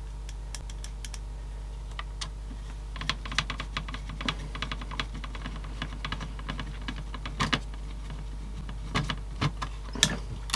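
A screwdriver driving a small screw into the plastic frame of a CD player mechanism, making a run of light, irregular clicks and ticks with some handling of the parts. The clicks are sparse at first, then come thick and fast from about three seconds in, and are loudest near the end.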